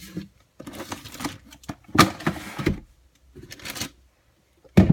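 Handling noise of toys being sorted: irregular taps, knocks and rustles in a few short bursts, with a sharper thump near the end.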